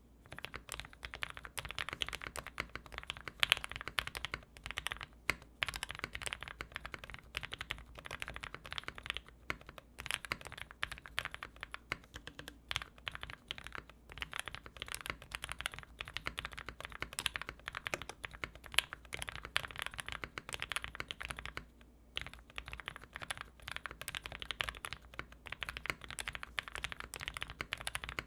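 Typing on a mechanical keyboard with 80 g Gateron Ink switches and GMK keycaps: a steady stream of keystroke clacks, with a few brief pauses.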